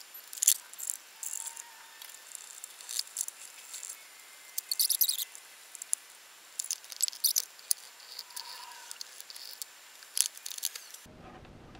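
Scattered clicks, taps and light rattles of plastic parts, screws and cables being handled as a 2.1 speaker system's subwoofer is reassembled, with a busier run of rattling about halfway through. The sound is thin, with no low end.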